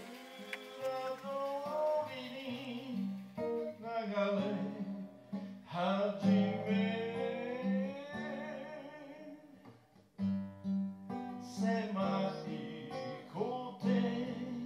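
A folk song sung to acoustic guitar accompaniment, the voice gliding over steady held guitar notes.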